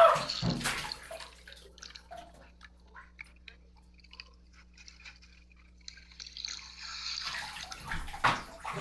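A splash as a person jumps into a swimming pool, followed by faint underwater bubbling and crackling clicks; about seven seconds in, a louder rush of water noise rises, with a sharp splash-like hit near the end.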